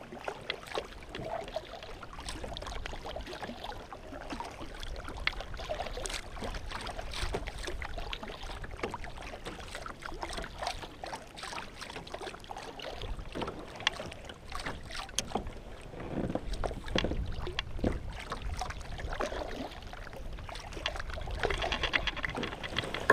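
Kayak paddling: a double-bladed paddle dipping and splashing, water sloshing and dripping against the hull, with small knocks and ticks. It gets louder near the end.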